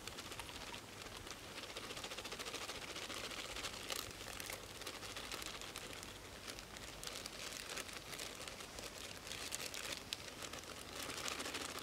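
Plastic zip-lock bag crinkling as flour is shaken out of it into a stainless steel bowl, a faint continuous rustle with fine ticks.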